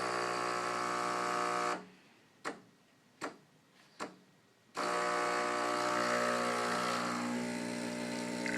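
Breville 800ESXL espresso machine's vibratory pump buzzing as it pulls a shot. It cuts out about two seconds in, gives three brief spurts, then runs steadily again from about five seconds on.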